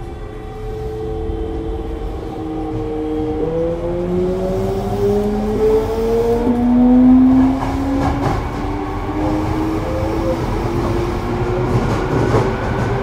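Mitsubishi GTO-VVVF inverter of a Toei 5300 series train whining as the train accelerates. Several tones rise steadily in pitch and jump up suddenly about three and a half seconds in, over a rumble of wheels on rail that grows louder.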